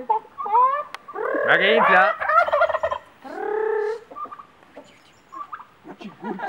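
Domestic turkey toms gobbling: several gobbles in quick succession over the first four seconds, the loudest about one and a half to two and a half seconds in, then only faint scattered sounds.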